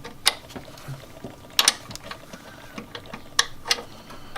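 A hand socket ratchet clicking as it works a suspension bolt, with several sharper metal clinks of tools and parts.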